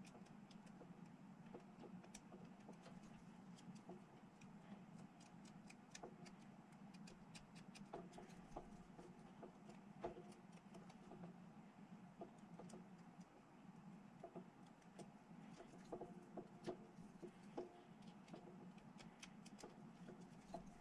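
Faint clicks and ticks of small plastic miniature parts being handled and pressed together by hand, scattered irregularly over a low steady room hum.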